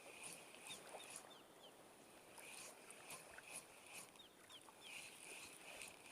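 Quiet outdoor ambience with faint, repeated high-pitched chirping calls.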